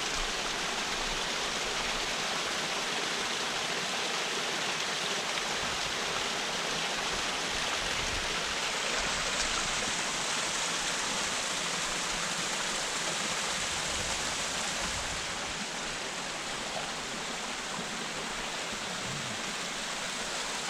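Steady rush of running water, a little quieter from about fifteen seconds in.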